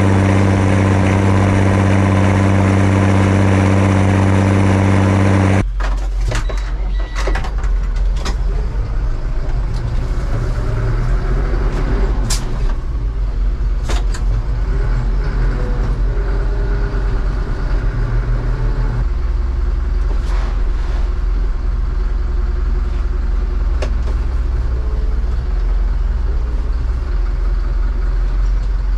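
Zetor 16145 Turbo Intercooler's six-cylinder turbo diesel running at steady working revs, heard close beside its exhaust stack, cut off abruptly after about six seconds. Then a tractor diesel idling with a deeper rumble, heard from inside the cab, with scattered clicks and knocks, its note dropping lower about two-thirds of the way through.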